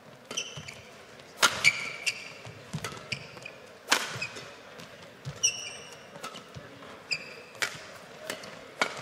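Badminton rackets striking the shuttlecock in a rally, a sharp crack every two to three seconds, with players' shoes squeaking on the court between strokes.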